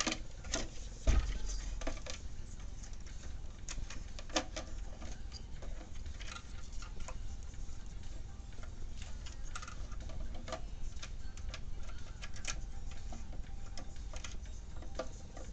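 Irregular light clicks and taps of plastic dispenser parts and a ribbon cable being handled and fitted, with one louder knock about a second in.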